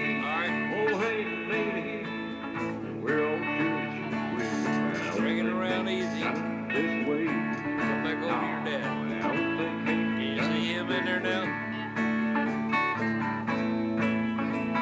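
Country-style guitar music with no words: an instrumental passage of sliding, bending lead notes over held, strummed chords.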